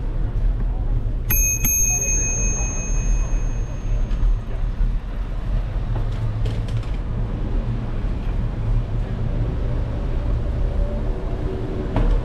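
Bicycle bell rung twice in quick succession about a second in, its bright ring fading over the next few seconds. A steady low rumble of wind and road noise from the ride runs underneath.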